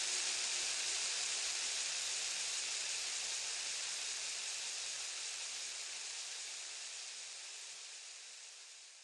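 Steady hiss of heavy rain, fading out slowly.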